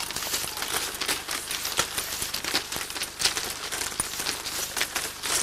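Dry split reed strips rustling and clicking irregularly as hands plait them into a mat.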